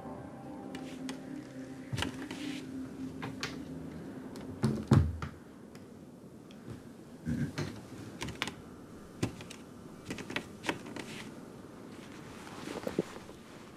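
Scattered soft clicks, knocks and rustles of a person easing through a door and moving quietly in a small room, with a louder thump about five seconds in. Low held music fades out in the first few seconds.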